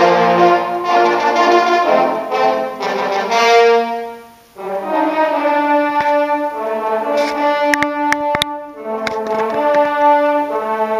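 Large trombone ensemble playing sustained, held chords. The sound breaks off briefly about four seconds in and then comes back in on a new chord.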